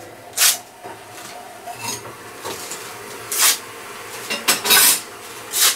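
A sharp bushcraft knife slicing through a sheet of paper held in the air: five or six quick hissing cuts, a sign of a keen edge.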